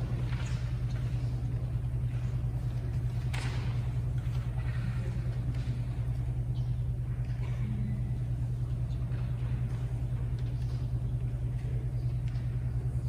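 A steady low hum fills the hall, with a faint knock about three seconds in and a few soft movement noises as people shift at the front.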